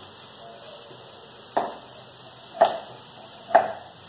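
Kitchen knife cutting tomatoes on a cutting board: three sharp knocks of the blade on the board, about a second apart.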